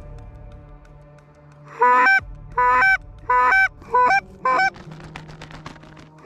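Canada goose honks: a run of about five loud two-note honks starting about two seconds in, each breaking sharply upward in pitch, then fainter honks near the end.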